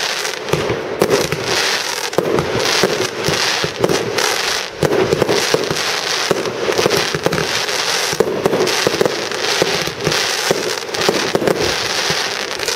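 Aerial fireworks bursting in a dense barrage of white crackling stars: a continuous, rapid crackle of many small reports, with no pause.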